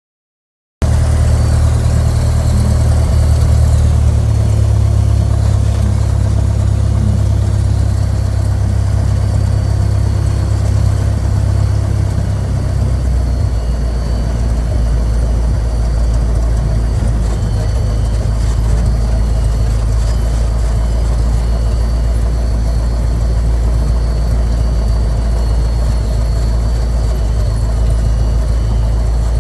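Single-engine light aircraft's engine and propeller running steadily during taxi, starting suddenly just under a second in. The engine note changes about halfway through.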